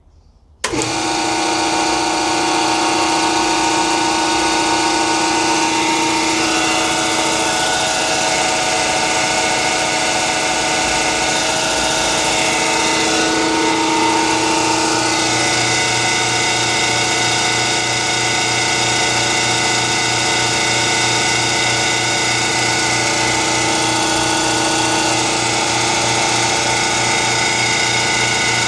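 Belt-driven air compressor with a newly installed Campbell Hausfeld pump starting up about half a second in, then running steadily as it pumps up the tank on its first run.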